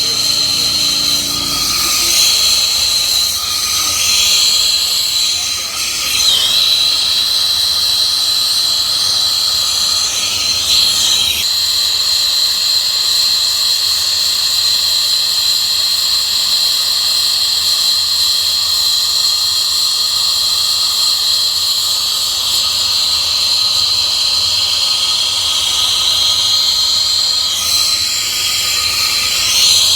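Turbo torch with a number 5 tip burning steadily, a loud hiss with a high steady whistle, as it heats 3-inch copper pipe for soldering. The whistle's pitch wavers briefly a few seconds in and again near the end.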